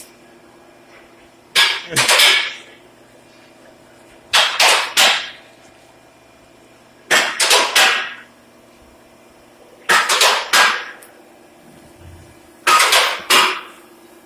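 Automotive vehicle lift raising a car: its pump motor hums steadily while short bursts of metallic clacking come five times, about every three seconds, each burst two or three quick strikes.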